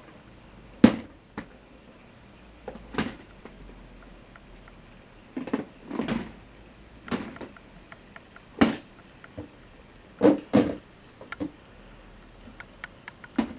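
About a dozen short, light knocks and clicks at uneven intervals, the loudest about a second in.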